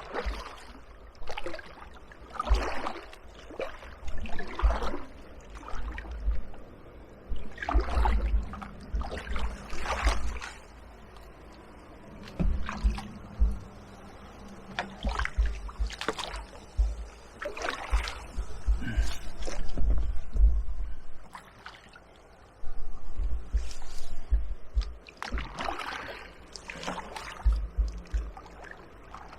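Kayak paddle strokes splashing and dragging through shallow, weed-choked water in irregular bursts every second or two, with low knocks between.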